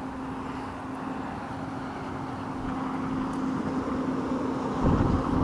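Steady engine drone, one constant hum that grows gradually louder; a low rumble joins it near the end.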